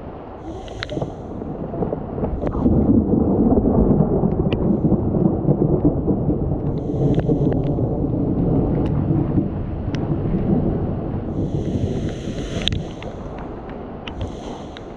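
A long roll of thunder that swells about two seconds in and slowly fades, over a hiss of rain.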